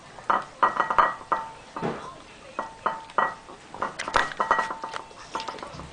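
Maltese dog eating from a ceramic plate: irregular sharp clinks and knocks as its mouth and the food strike the plate, many of them with a brief ring, at times in quick clusters.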